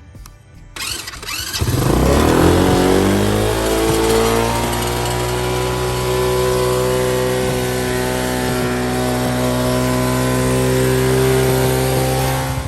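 Four-wheeler (ATV) engine running just after being started: it sets in about a second in, its revs fall over the next couple of seconds, then it holds a steady idle.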